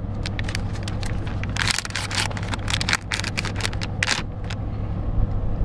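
Quick clicks and rattles of small plastic parts being handled up close as batteries are fitted into an RC car's transmitter. They thin out about four seconds in. Under them runs a steady low vehicle rumble in the background.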